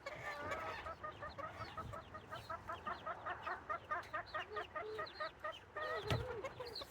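Hens clucking in a quick, even run of short notes, about five a second, followed near the end by a longer call that bends in pitch and a dull thump.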